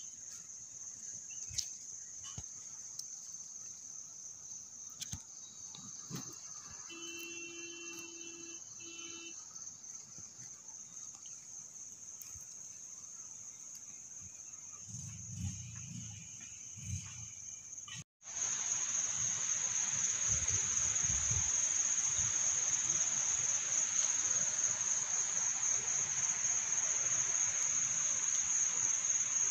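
Crickets chirring in a steady, high, continuous drone. About 18 seconds in the sound cuts out for an instant and returns louder, over a steady hiss.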